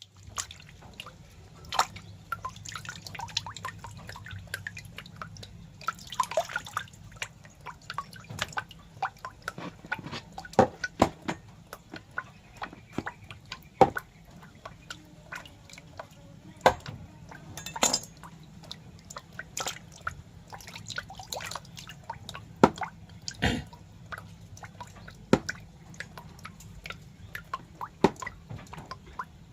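Irregular wet clicks and drips at uneven intervals, a handful of them much louder than the rest, over a faint steady low hum.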